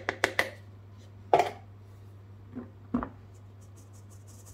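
Knocks and clicks of a flour container against a stainless steel mesh sieve as flour is tipped in for sifting: a quick run of sharp clicks, a louder knock about a second in, two softer knocks after it, then light rapid ticking near the end as the sieve is shaken.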